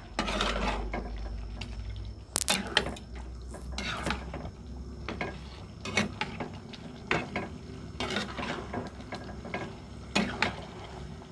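Metal spatula stirring thick chicken-and-potato rendang sauce in a frying pan, with repeated clinks and scrapes against the pan over the low sound of the simmering sauce.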